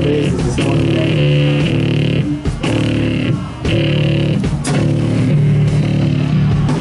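Live blues-rock band playing loud through a PA: electric guitar and bass riffing over drums, held chords cut by short stops every second or so.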